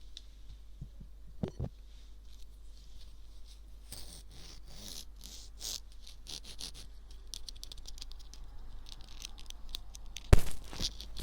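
Ear picks scraping and rustling against a microphone's ear in ear-cleaning ASMR: soft, crackly scratching strokes, brighter around the middle, with two louder rubbing strokes near the end.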